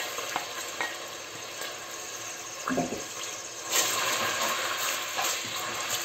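Chopped spring onion sizzling in hot oil and melted margarine in a stainless steel pot, stirred with a wooden spoon. There is a dull knock about three seconds in, and the sizzle swells about a second later.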